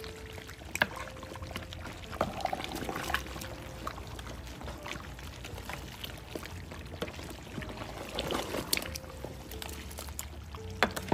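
Wooden spatula stirring chunks of beef in a large aluminium pot of bhuna simmering in its own juices: wet squelching and bubbling, with a few sharp knocks of the spatula against the pot, over the steady low rumble of the gas burner.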